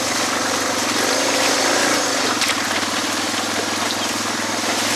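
Suzuki DR650's single-cylinder four-stroke engine running at low, fairly steady revs while riding a rocky trail, its pitch lifting slightly about a second in and then settling, over a steady hiss.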